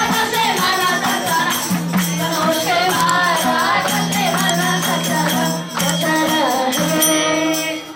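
A Hindu devotional bhajan sung by young Vedic students, with held instrumental notes underneath and rhythmic percussion. The music stops abruptly at the end.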